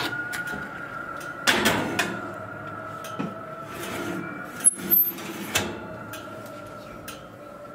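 Metal baking tray scraping and knocking against the oven rack as it is slid into the oven, with a few sharp clanks about a second and a half in and again near the middle.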